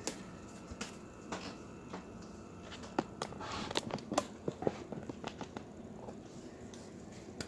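Trading card packs and cards being handled: scattered crinkles and light clicks of wrapper and card stock, busiest in the middle.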